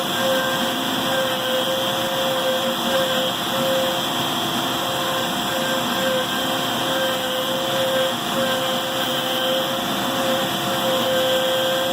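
Homebrew CNC router running a V-groove carving job: its DeWalt router spindle cuts while the shop-vac chip collection and vacuum hold-down table run, a steady machine noise. A whine through it keeps breaking off briefly, every second or so, as the stepper-driven axes move.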